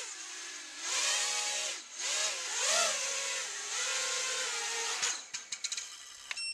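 Eachine Wizard X220S racing quadcopter in flight, its brushless motors and propellers whining, the pitch rising and falling with the throttle. About five seconds in the motors stop and there is a quick run of ticks as it comes down, then a short high beep near the end.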